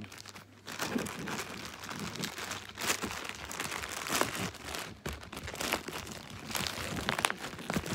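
Plastic mailing bag crinkling and crackling as it is handled and pulled open by hand: a continuous rustle with many sharp little snaps.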